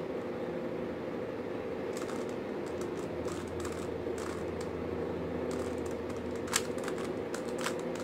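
Plastic 3x3 Rubik's cube being turned by hand: a run of short, uneven clicks and rattles as the layers snap round, two of them louder near the end, over a steady low hum.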